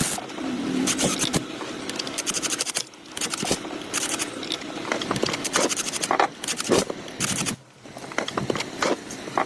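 Irregular scraping and clicking of hand tools at work, a quick run of short strokes and knocks that pauses briefly near the end.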